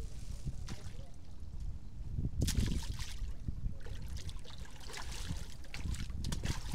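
Grouper splashing at the surface of a sea cage as they snap up small fish tossed in as feed, a burst of splashing about two and a half seconds in and more near the end, over a steady low rumble.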